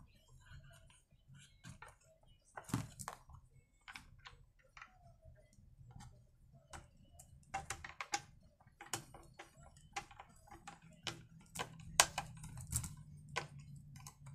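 Irregular clicks and taps of a screwdriver working a screw into the plastic housing of an Oleo-Mac 937 chainsaw, with small parts knocking on the housing. The clicks grow busier about halfway through.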